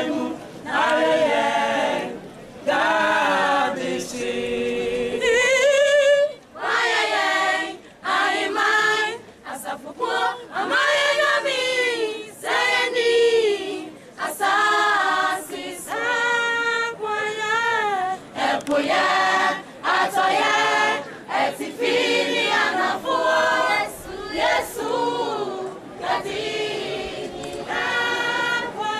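A mixed choir of schoolboys and schoolgirls singing unaccompanied, in phrases broken by brief pauses for breath.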